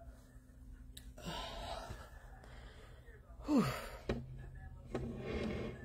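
A woman's breathy exhales and one falling sigh, with a few small clicks as a phone is handled, over a faint low steady hum.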